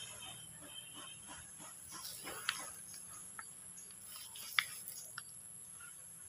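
A goat browsing in leafy weeds, tearing and chewing leaves: a run of soft irregular clicks and rustles, then a few sharper single clicks in the second half, over a steady high insect drone.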